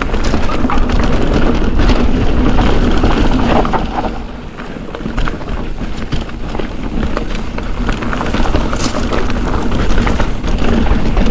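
Wind buffeting the microphone over the rolling noise and rattle of a mountain bike, a 2023 Ibis Ripmo V2S, descending a dirt downhill trail, with scattered clicks and knocks from bumps in the trail.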